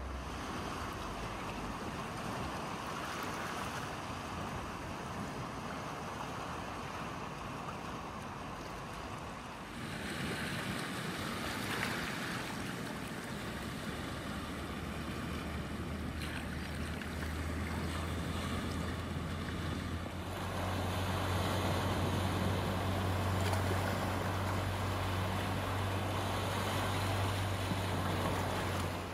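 Small sea waves washing and lapping over rocks and sand, with wind. A low steady rumble grows stronger over the last third.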